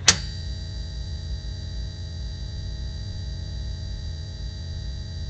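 Failing fluorescent tube lamp: a sharp click just after the start, then a steady electrical buzz with a low hum and a thin high whine.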